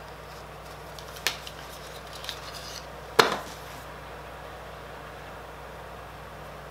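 Small cardboard eyeshadow box and compact being handled and opened: a light click about a second in, a little faint fiddling, then one sharp click about three seconds in, over a steady low hum.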